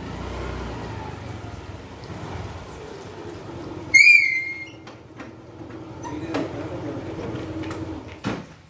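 Small motor scooter engine running as the scooter rides in and comes to a stop, with a short, high whistle-like tone about four seconds in and a sharp knock near the end.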